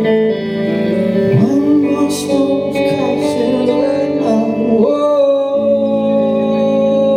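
Live pop-rock band performance: a male voice sings long held notes over sustained guitar chords, sliding up into a note about a second in and holding a long note through the second half.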